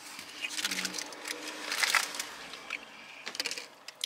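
Eating sounds at close range: crunchy chewing and crackly rustling as takeout fried chicken and fries are eaten and handled, a dense irregular crackle.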